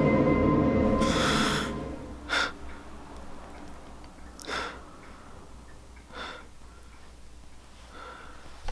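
Music with steady held tones fades out within the first two seconds as a man gasps. He then breathes hard in short, sharp breaths about every two seconds.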